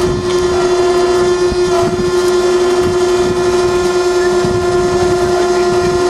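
Steady machine drone holding one constant pitch, with scattered knocks underneath.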